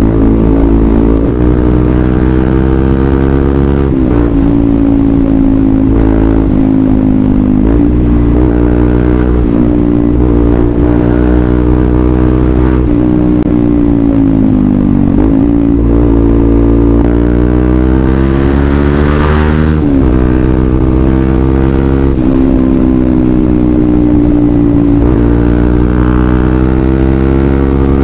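Bajaj Rouser 200NS single-cylinder engine running loud through a Villain aftermarket muffler while riding. Its pitch climbs and drops back several times as the throttle is worked.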